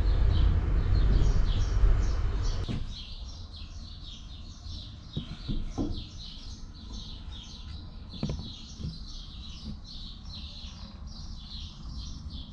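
Small birds chirping rapidly and continuously. A loud low rumbling noise covers the first three seconds or so and cuts off abruptly, and a few faint knocks follow.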